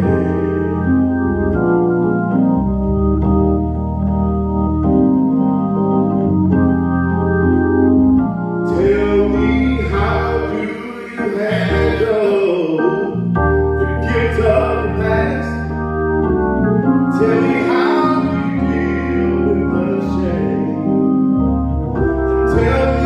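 Gospel music selection: an organ holding sustained chords that change every second or two, with a singing voice coming in about nine seconds in and going on in phrases.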